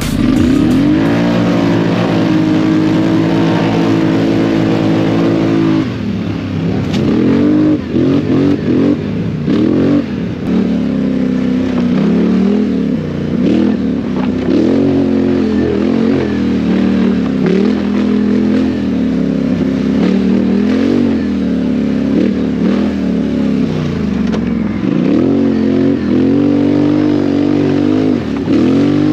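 ATV (quad) engine under race throttle: held at high revs for about five seconds, then revving up and down again and again as the throttle is opened and closed.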